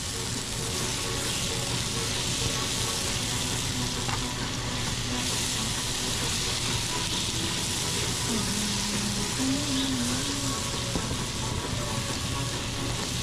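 Sliced carrots and onions sizzling in oil in a frying pan on high heat, a steady, even hiss.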